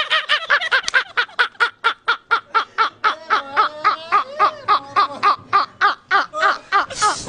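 Two men laughing hard together in fast, regular bursts of about four laughs a second, their voices overlapping, with a short breathy hiss near the end.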